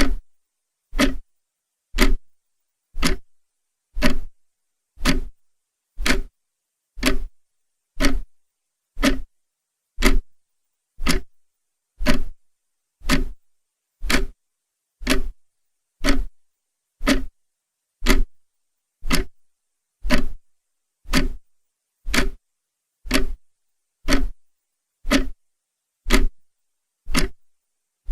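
Clock ticking steadily, one sharp tick about every second, with silence between ticks.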